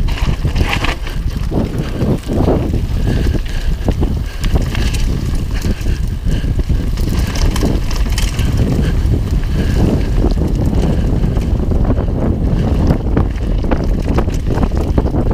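Wind buffeting a helmet-mounted action camera's microphone during a fast mountain-bike descent, over tyres rolling on a loose gravel and dirt trail. The UMF Freddy One bike rattles and clatters with frequent short knocks from stones and bumps.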